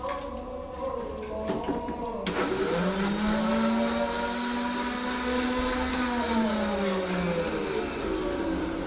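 Electric mixer grinder with a steel jar grinding ginger and garlic into paste. A little over two seconds in, the motor whine jumps and climbs to a higher speed, holds steady, then winds down to a stop near the end.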